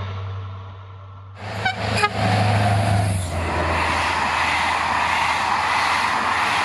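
Locomotive-hauled passenger train of silver Corail coaches passing at speed: a couple of short horn toots about one and a half to two seconds in, then the steady rushing of the coaches rolling past on the rails.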